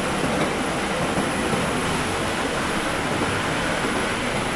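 Steady, loud machinery din with no distinct knocks or changes.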